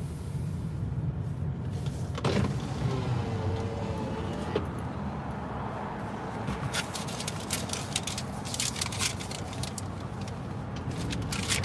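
Inside a car rolling slowly: a steady low engine and road rumble. A wavering whine runs for about two seconds near the start. From about the middle on comes a run of rapid scraping noises from the car's brakes as it slows, brakes that sound bad.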